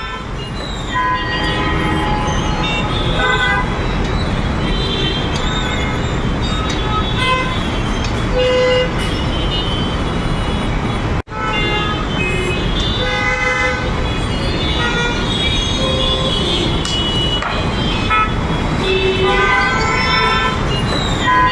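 Jammed city traffic: many vehicle horns honking short toots at different pitches over the steady noise of idling and creeping engines. The sound drops out for an instant about halfway through.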